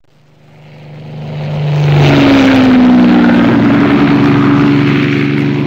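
Propeller aircraft engines flying past. The sound grows from faint to loud over about two seconds, then its drone drops slightly in pitch and stays loud.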